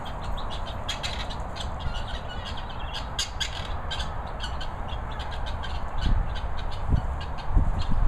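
Guinea fowl calling in a rapid chatter of short, clipped notes, repeated over and over, with a low rumble underneath and a few dull thumps near the end.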